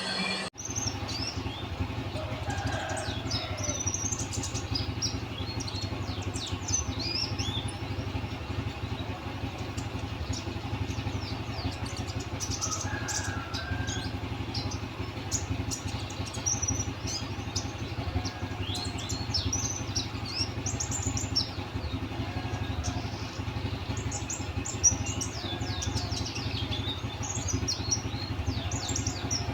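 Small birds chirping: many short, high, quickly falling notes, over a steady low hum.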